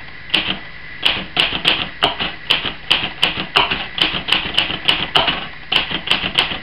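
1963 Hermes 3000 portable manual typewriter being typed on: a run of uneven key strikes at about four a second, each a sharp clack of a type bar hitting the platen. Its owner presents it as a notably quiet machine.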